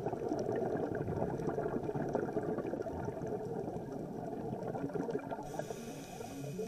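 Dense underwater crackling and bubbling noise picked up by a dive camera, most of it low and muffled. A keyboard melody comes in near the end.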